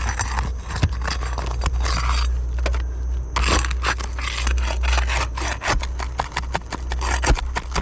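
Asphalt roofing shingles being pried up and dragged free, giving irregular scraping strokes and sharp clicks over a steady low hum.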